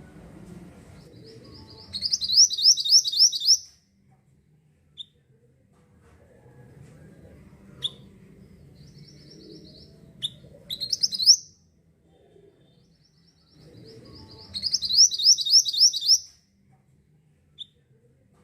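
Mantenan bird (a minivet) singing: three loud, fast trills of about six sharp, high notes each, a few seconds apart, with single short chirps in between, over a faint low background rumble.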